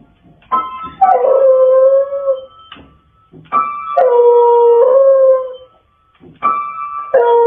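Beagle pressing upright-piano keys with its front paws and howling along: three times a chord or two is struck and a long, wavering howl rises over the ringing notes, the last one starting near the end.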